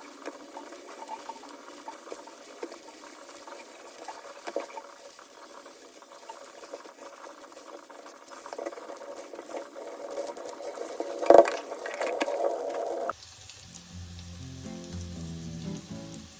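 Food frying in a pan while being stirred, with many small clicks of a utensil against the pan and one louder clack about eleven seconds in. About thirteen seconds in it cuts suddenly to soft background music.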